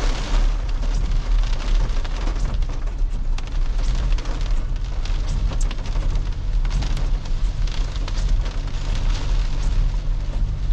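Toyota Innova Crysta driving: a steady low rumble of engine and road noise, with scattered sharp ticks throughout.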